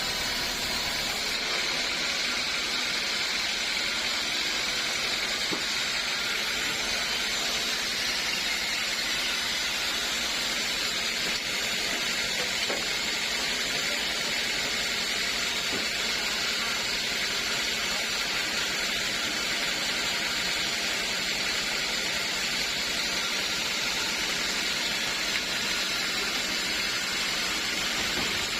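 Sawmill saw running steadily, a constant even noise without breaks or pauses.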